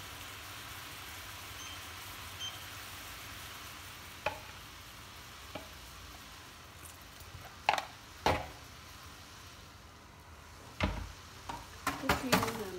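Sliced mushrooms simmering in a little water in a stainless steel pan: a steady bubbling sizzle with a few sharp clicks. Near the end a wooden spatula scrapes and knocks around the pan as the mushrooms are stirred.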